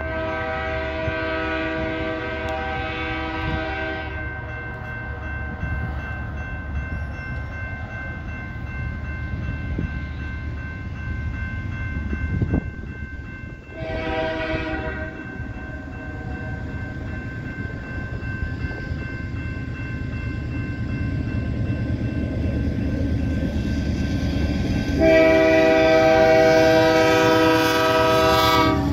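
Horn of an approaching GE AC4400CWM diesel locomotive sounding for a level crossing: a long blast at the start, a short one about halfway, and another long one near the end. Under it, a crossing bell rings steadily and the locomotive's rumble grows louder as it nears.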